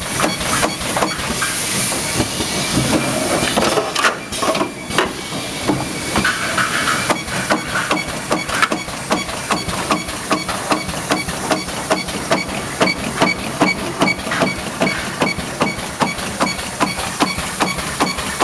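Radiator seam welding machine running: the electrodes snap out a rapid, even train of welding pulses, about two to three a second, over a hiss. The hiss is heavier in the first few seconds.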